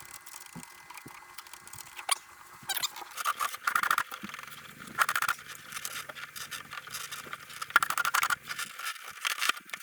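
A pen scratching along a surface in short strokes as a pattern is traced onto the inside of the model jet's fuselage, with a few light taps and handling noises between strokes.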